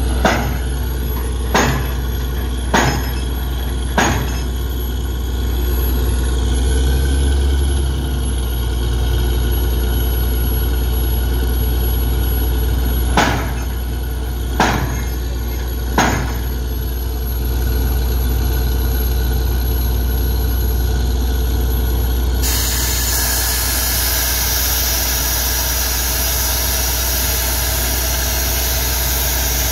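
Truck-mounted borewell drilling rig running, its engine a steady low drone. Sharp knocks come about a second and a quarter apart, four near the start and three around the middle, and a hiss comes in abruptly about three-quarters of the way through.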